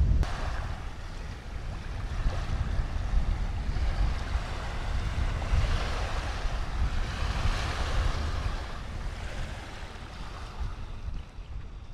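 Small wind-driven waves breaking and washing onto a muddy lake shore, with wind buffeting the microphone as a low rumble. The wash of the waves swells loudest a little past the middle, then eases.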